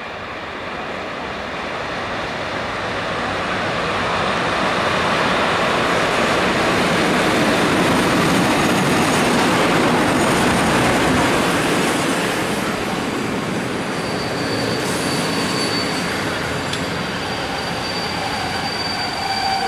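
Passenger train hauled by an EP07 electric locomotive running into a station and passing close by, the rolling noise of the locomotive and carriages building to its loudest about halfway through and then easing as it slows. In the last few seconds a high, steady squeal rises from the wheels and brakes as the train comes to a stop.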